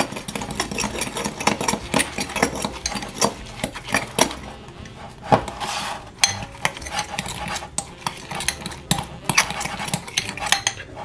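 Metal fork stirring an egg and crushed ladyfinger crumbs in a ceramic mug, with quick, irregular clinks and scrapes of the fork against the mug.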